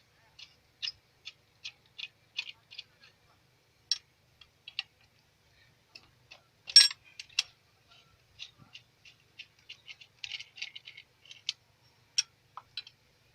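Light, sharp metallic clicks and ticks from hand tools working on a fuel injection pump: a run of about two or three clicks a second at first, then irregular clusters, with one louder clink about seven seconds in.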